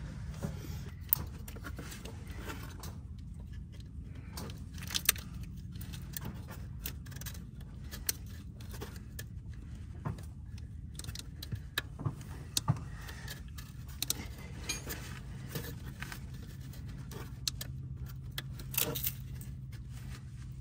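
Scattered small clicks, taps and rattles of a plastic wiring-harness connector and its wires being handled and worked onto the NOx sensor plug of a 6.7 Cummins engine, with a few sharper clicks, over a steady low hum.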